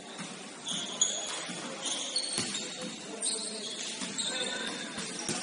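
Basketball shoes squeaking on the court during play, many short high squeaks, with a few sharp thuds of the ball bouncing.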